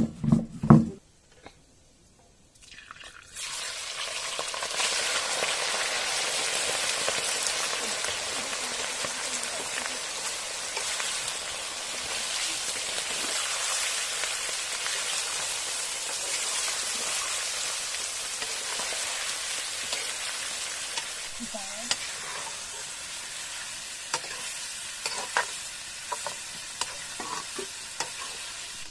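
Food sizzling as it fries, a steady sizzle that starts suddenly about three seconds in and keeps on, with a few light clicks near the end.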